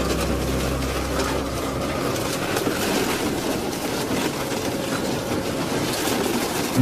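Twin-shaft industrial shredder tearing apart the sheet-metal body of a small van: a dense, continuous crunching and cracking of metal with many sharp snaps.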